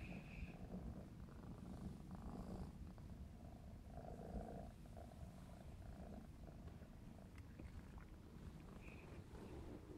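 Maine Coon kitten purring steadily and faintly while being stroked.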